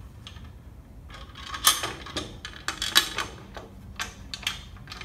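Metal bandsaw table being handled and set onto its trunnion mounts: a string of light clanks and knocks, the two sharpest about a second and a half in and again about three seconds in.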